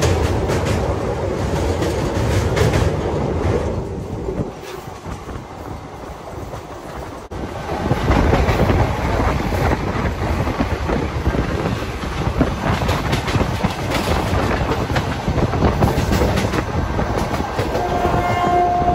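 Coach wheels of the moving 22717 Rajkot–Secunderabad Express clattering and rumbling over the rails, heard from inside the train: loud while on the steel girder bridge, quieter for a few seconds, then loud again after an abrupt cut. Near the end a train horn starts, one steady note.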